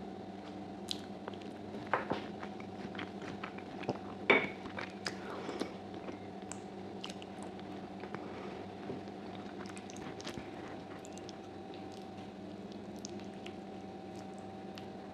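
Close-miked chewing of soft, gelatinous sheep's trotter meat: wet smacks, squishes and sharp mouth clicks, busiest and loudest in the first half. Later it settles to a few faint ticks over a steady low hum.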